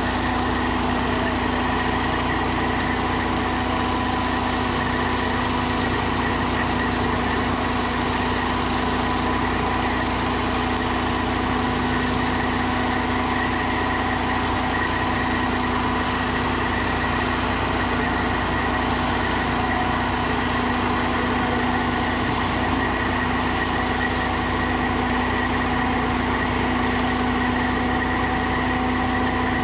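Fire truck's diesel engine running steadily at idle, a constant hum with a low rumble.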